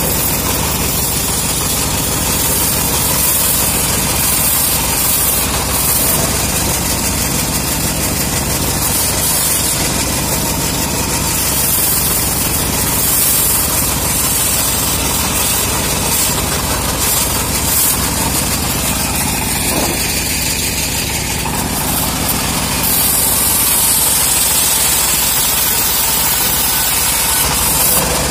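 Homemade bandsaw mill running steadily as its blade rips a teak plank lengthwise, a machine drone under the hiss of the cut. The hiss grows stronger in the last few seconds.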